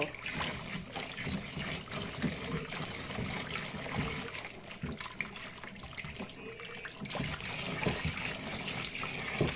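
Hot water poured in a steady stream from a pan into a plastic basin of liquid soap mixture.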